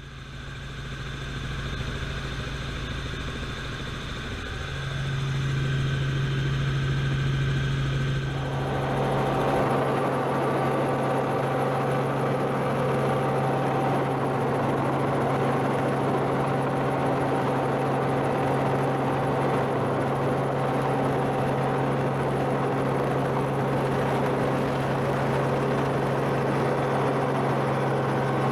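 Helicopter running steadily, a strong low hum with steady tones above it. It fades in and grows louder over the first few seconds, and a broader rushing noise joins about eight seconds in.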